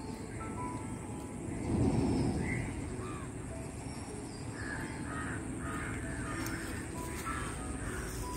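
Birds calling: crows cawing repeatedly, with short thin whistles from other birds. About two seconds in, a brief low rush of noise.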